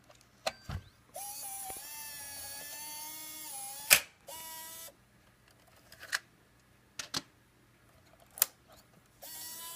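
Canon GL2 camcorder's motorised cassette mechanism ejecting the DV tape. A couple of clicks, then the motor whirs steadily for about two and a half seconds and stops with a loud clack, whirs again briefly, and a few sharp handling clicks follow. Near the end the motor whir starts again.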